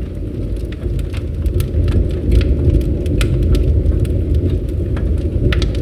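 Bonfire burning with a steady low rumble of flames and irregular sharp crackles and pops of burning wood.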